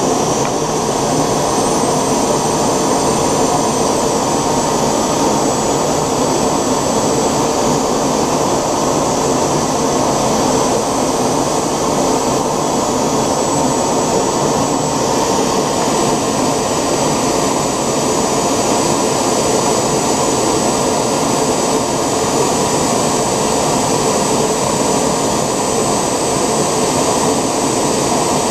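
Homemade 3D-printed model gas turbine (jet engine) running at a steady speed: a loud, even rushing noise with a thin high whine held over it.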